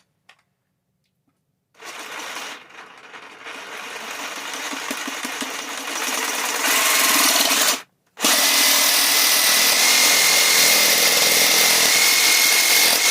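Power saw cutting through PVC pipe. It starts about two seconds in and grows louder as it bites, cuts out briefly about eight seconds in, then carries on steady and loud.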